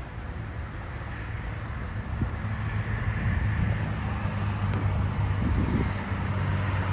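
Car running on the road, a steady low engine and road hum with wind noise, growing louder through the stretch.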